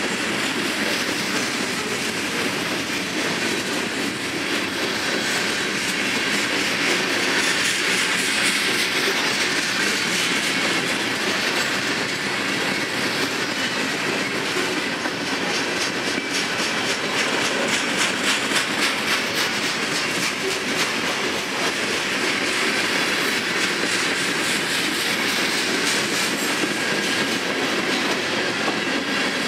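A CSX freight train's cars rolling past at steady speed: a continuous rumble of steel wheels on rail with rapid clickety-clack over the rail joints, the clicking thickest about halfway through.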